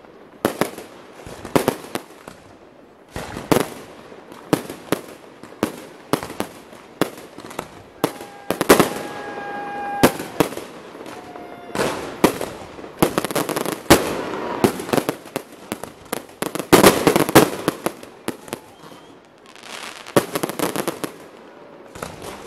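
Fireworks display: aerial shells bursting in an irregular string of loud bangs, with some stretches of rapid, overlapping bursts.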